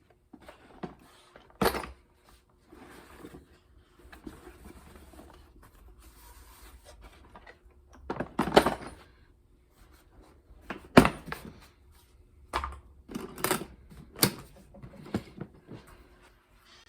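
Handling noises at a workbench: a series of sharp knocks and clacks from tools and materials being picked up and set down, with rustling and scraping between. A faint steady hum runs underneath.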